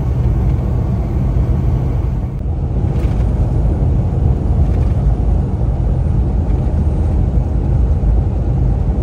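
Inside a semi-truck cab at highway speed: steady low rumble of the diesel engine mixed with road and tyre noise.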